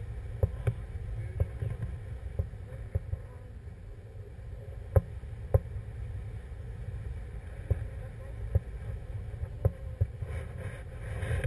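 Wind from a paraglider's airspeed buffeting the camera microphone as a steady low rumble, broken by sharp clicks and knocks at irregular intervals.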